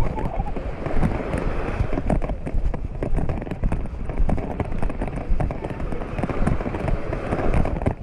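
Wind buffeting the microphone with a steady low rumble and irregular crackling pops, over beach ambience of small waves on the shore and faint voices of beachgoers.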